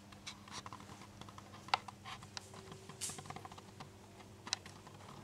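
Faint, irregular clicks and ticks over a low steady hum.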